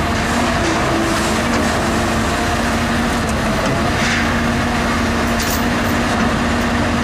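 Cat 319D LN hydraulic excavator's diesel engine running steadily while the boom and bucket are worked.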